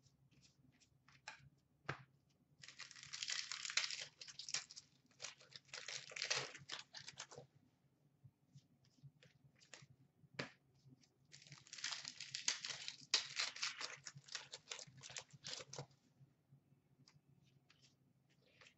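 Hockey trading cards handled by hand: two stretches of quick papery rustling and clicking as cards slide and flick through a stack, with scattered single card clicks between them.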